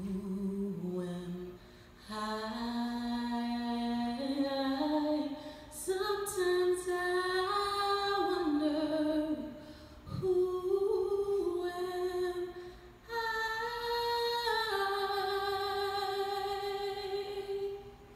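A woman singing solo and unaccompanied, long sustained notes in several phrases with short breaths between them, the last note held for several seconds as the song ends.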